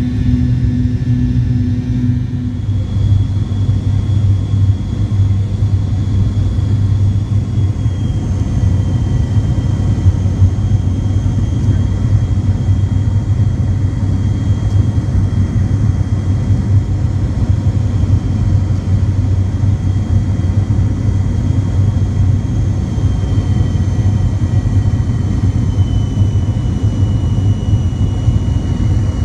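Cabin noise of a McDonnell Douglas MD-88 jetliner on final approach: a steady rumble of airflow and its rear-mounted Pratt & Whitney JT8D turbofans, with a thin high whine that drops slightly in pitch twice.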